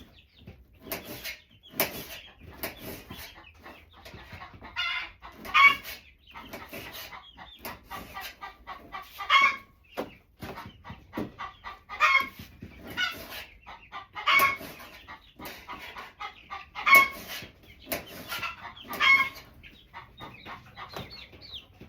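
Chickens calling loudly, a short call repeated about every two to three seconds, over a steady run of small clicks and knocks.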